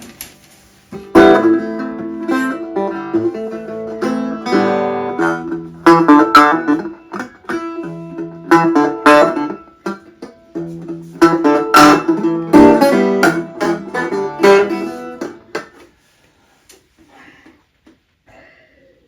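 Dobro resonator guitar being played in phrases of plucked notes and chords. The playing stops about sixteen seconds in, leaving only faint scattered sounds.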